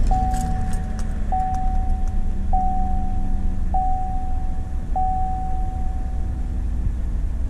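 GM 4.3-liter EcoTec3 V6 idling just after start-up on fresh oil, with the oil pressure coming up. Over it, the dashboard warning chime rings five times, evenly spaced a little over a second apart, then stops.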